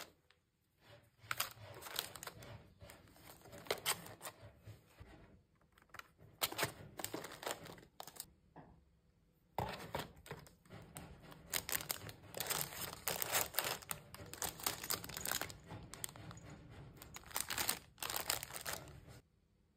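Plastic cellophane wrappers crinkling and rustling as wrapped stationery items are pushed and arranged in a cardboard mailer box, in uneven bursts with a short pause a little before halfway.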